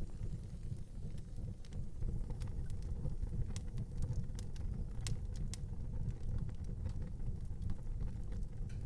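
Fire burning in an outdoor fireplace: a low, steady rumble with scattered sharp crackles and pops, the loudest pop about five seconds in.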